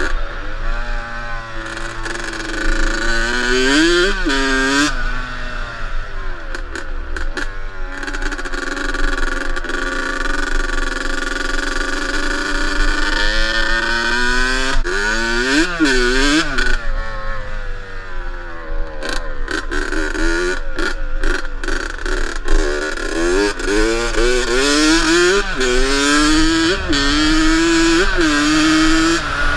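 1984 Yamaha YZ80's two-stroke single-cylinder engine running under way, revving up and down as the throttle opens and closes, its pitch climbing and dropping several times.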